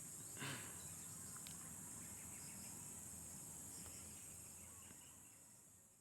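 Backyard ambience of insects chirring steadily at a high pitch, with a brief soft rustle about half a second in. The ambience fades out near the end.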